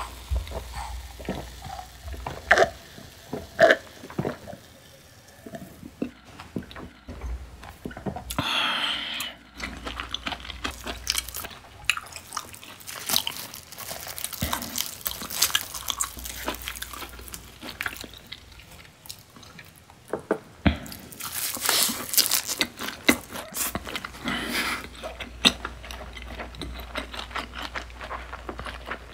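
Close-miked eating sounds. Gulps of beer near the start, then crisp crunching bites and wet chewing of sushi wrapped in a sheet of dried laver (gim).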